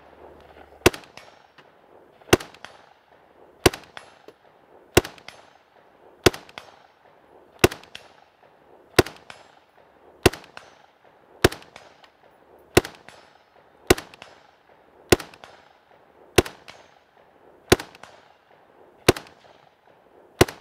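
Steyr AUG rifle firing .223 rounds in slow, steady semi-automatic fire: sixteen sharp shots about one every 1.3 seconds, each trailing off in a short echo.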